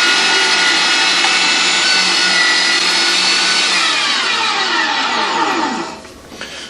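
STX International Magnum 1800 W electric meat grinder's motor running with a steady whine, then switched off about four seconds in, its pitch falling as it spins down over about two seconds.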